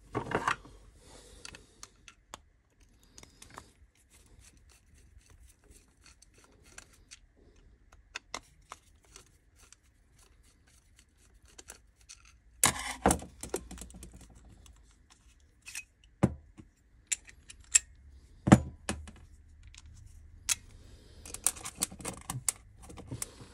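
Screwdriver and plastic parts of an Ulka EP5 vibration pump being worked apart and handled on a stainless steel table: scattered small clicks and scrapes, with a few louder sharp knocks in the second half and a quick run of clicks near the end.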